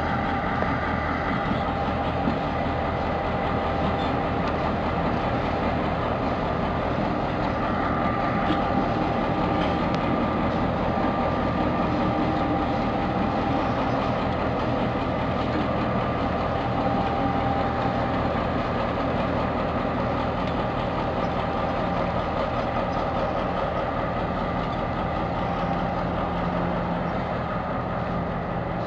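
V8 EMD 645 two-stroke diesel engine of a DBR class locomotive running steadily as the locomotive moves slowly along the track.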